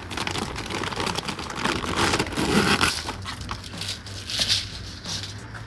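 Clear plastic bag crinkling and rustling as it is handled and opened, busiest in the first three seconds, over a faint steady low hum.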